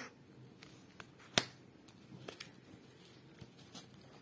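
Oracle cards being handled and set down on a table: a few light clicks and taps, the sharpest one about a second and a half in.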